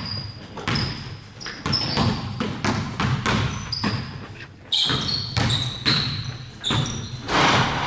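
Basketballs bouncing on a hardwood gym floor in irregular thuds, several players dribbling at once, with short high sneaker squeaks in between.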